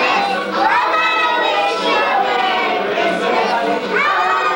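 Many young children's voices overlapping in a large room, part singing and part chattering.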